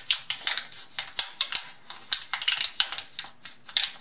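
Thin aluminium from a cut soda can crinkling and crackling as it is folded over on itself by hand, in an uneven run of sharp crackles several times a second.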